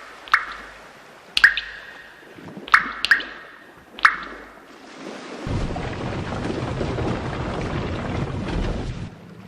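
Sound-effect clips: five sharp dripping plinks with a short ring in the first four seconds, then a steady noisy rumble for about four seconds that cuts off suddenly.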